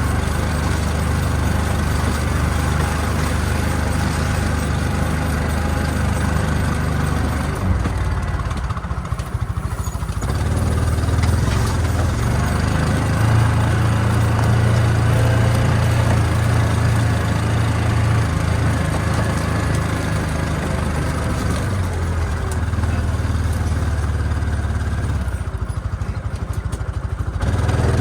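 Utility vehicle (UTV) engine running steadily, easing off briefly about eight seconds in, then picking up to higher revs, and easing off again near the end.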